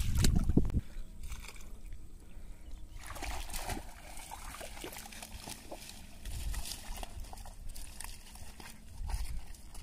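Shallow water sloshing and splashing in small irregular bursts as hands grope through floating water hyacinth. A loud low rumble in the first second, like handling or wind on the microphone.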